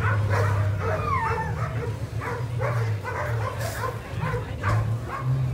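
A team of excited sled dogs in harness barking and yipping, many short barks and high yelps overlapping, with a steady low hum underneath.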